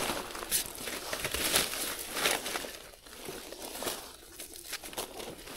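Leaf litter and forest undergrowth rustling and crinkling as gloved hands pick small mushrooms from the ground, in irregular short crackles that ease off a little past the middle.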